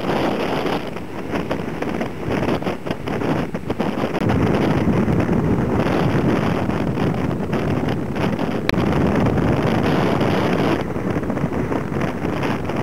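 Heavy storm surf breaking and whitewater rushing over rocks, with wind buffeting the microphone. The roar swells louder about four seconds in and eases near the end.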